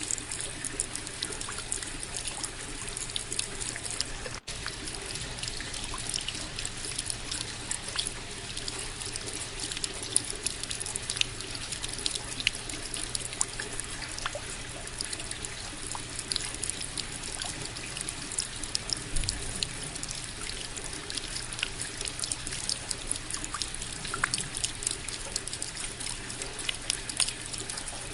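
Steady rain with many close drops ticking and a trickle of running water. The sound drops out for an instant about four seconds in.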